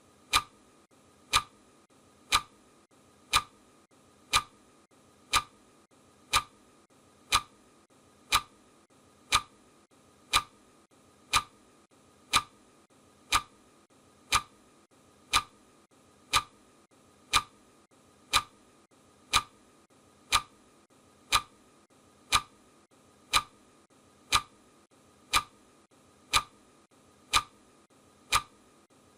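Clock ticking once a second, each tick a sharp, even click, counting off the seconds of a countdown timer.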